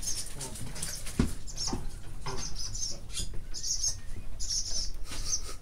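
Small birds cheeping in short high-pitched bursts, several over a few seconds, with a single sharp knock about a second in.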